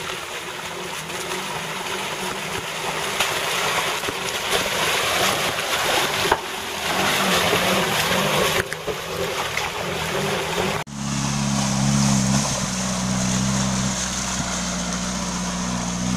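A Suzuki Jimny four-wheel drive running along a muddy track, its engine droning under the rush of tyres churning through mud and water. About eleven seconds in the sound cuts to a different off-road vehicle's engine running steadily.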